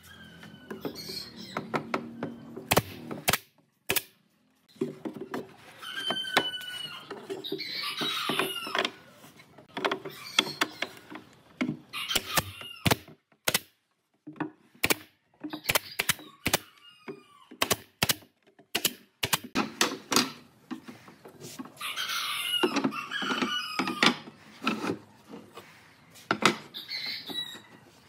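Pneumatic brad nailer firing into pine framing, many sharp shots at irregular intervals, with knocks from the boards being handled between them.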